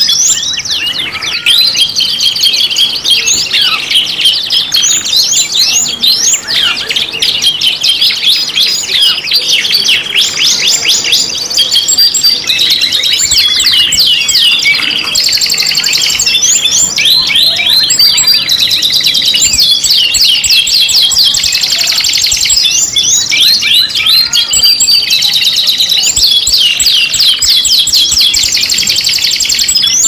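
Several domestic canaries singing at once: a continuous dense mix of rapid trills, sweeping notes and long rolling trills, mixed as a canary lure song (pancingan) meant to set other canaries singing.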